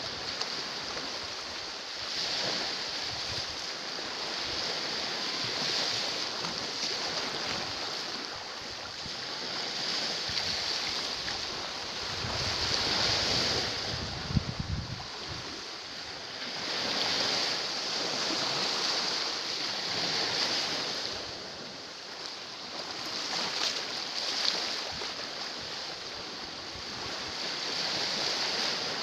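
Small sea waves washing against a rocky shore, the surf noise swelling and easing every three to four seconds. Wind rumbles on the microphone about halfway through.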